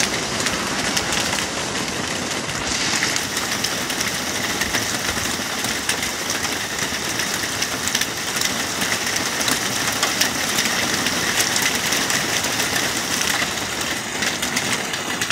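Heavy rain pouring down onto a paved road and driveway, a steady, dense hiss of drops splashing on wet asphalt and grass.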